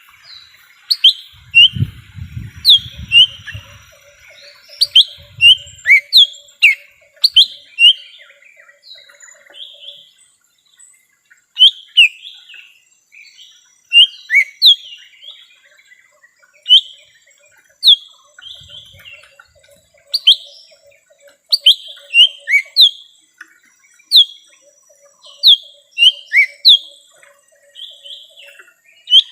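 Cucak ijo mini (lesser green leafbird) singing: a lively run of loud, sharp whistled notes that sweep downward, often in quick pairs, used as a lure call for wild birds.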